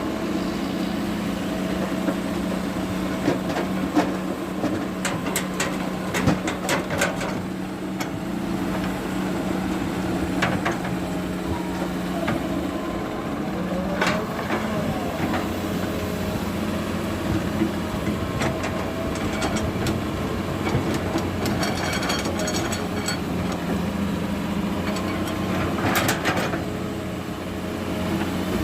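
Heavy diesel earthmoving machinery running steadily, with scattered sharp knocks and clanks.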